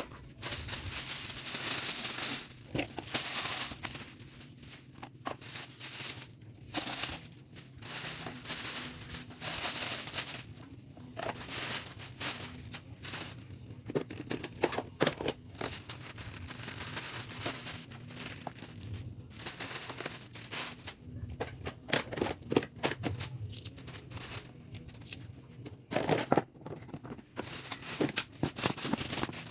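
Irregular rustling, crinkling and clicking of packaging and objects being handled and moved about, in short uneven bursts with a few sharper knocks.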